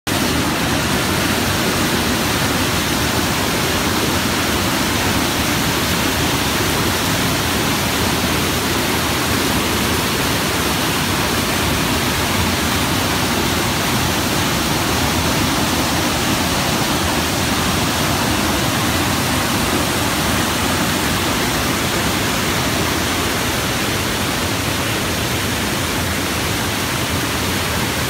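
Whitewater at Nooksack Falls cascading over boulders into a pool: a steady, loud rushing of falling water.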